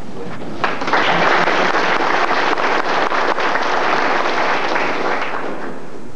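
Audience applauding: many people clapping at once, starting about half a second in and dying away near the end.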